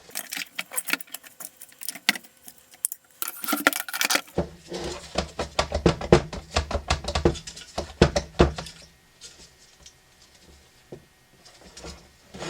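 Hand-work noise on a diesel heater: irregular clicks, taps and light metallic rattling of tools and parts being handled, with heavier knocks and rumbling handling noise in the middle.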